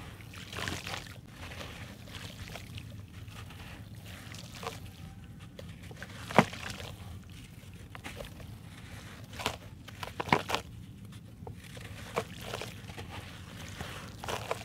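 A dry grey sand block is crumbled and broken by hand, its powder pouring and trickling into a basin of water. Sharp cracks come as the block snaps: a loud one about 6 seconds in and several close together around 10 seconds.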